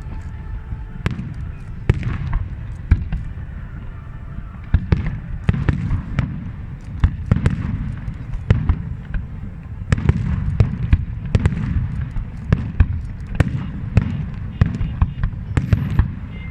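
Fireworks display: many sharp bangs and crackles at an irregular pace, several a second, over a continuous low rumble, recorded on a mobile phone.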